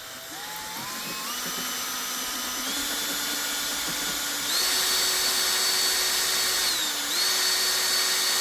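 Electric drill running while enlarging a hole in plexiglass. Its motor whine rises in pitch in steps as it speeds up, dips briefly about seven seconds in, then comes back up to speed.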